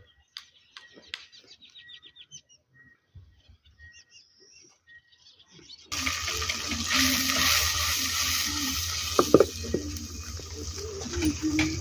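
Small birds chirping in short repeated calls. About halfway through, a sudden cut brings in a louder steady rushing noise with a low hum underneath and a couple of sharp knocks.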